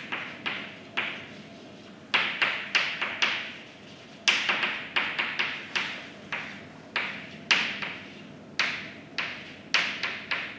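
Chalk writing on a blackboard: quick runs of sharp taps and short strokes, in clusters with brief pauses between.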